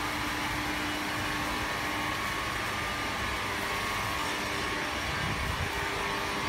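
Air bubble film making machine running: a steady mechanical drone with a few faint steady tones, holding at one level throughout.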